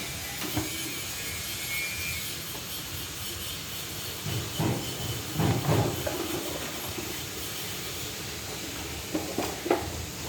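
Steady background hiss with a few short knocks and rattles from the air filter housing parts of a scooter being handled and refitted, a cluster about halfway through and a couple more near the end.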